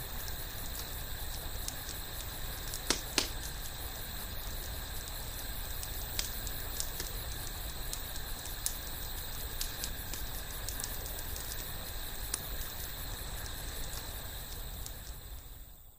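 Wood campfire crackling, with scattered sharp pops and two louder ones about three seconds in, over a steady high chirring of night insects. Fades out at the end.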